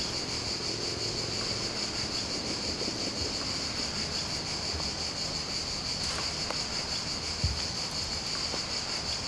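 A steady, high-pitched insect chorus that runs on without a break, with one soft knock about seven and a half seconds in.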